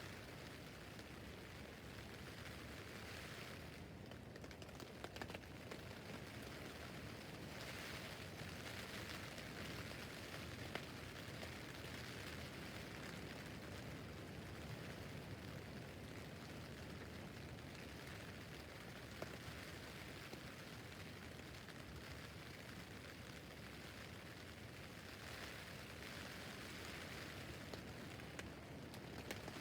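Rain pattering steadily on a tent roof, a soft even hiss with scattered individual drop ticks, swelling and easing every few seconds as the rain comes in heavier and lighter spells.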